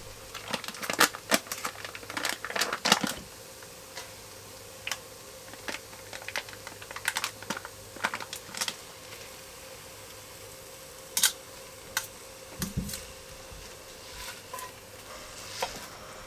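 Kitchen prep handling noise: a quick run of clicks and taps in the first three seconds, then scattered single clicks and knocks, with a duller thump about twelve and a half seconds in, over a faint steady hum.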